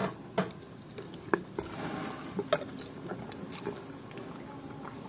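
A person chewing a mouthful of kholodets (meat aspic) close to the microphone: soft wet smacks and scattered small clicks.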